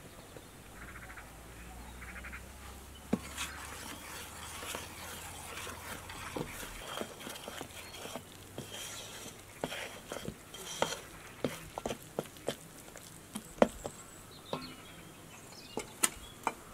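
Metal spoon stirring flour into a wet egg batter in a stainless steel bowl, knocking and scraping against the bowl in irregular clicks, after a soft start as the flour goes in.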